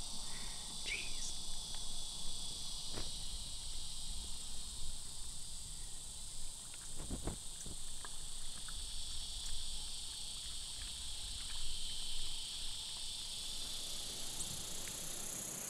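Insects trilling in a steady high-pitched chorus, with a faint low bump about seven seconds in.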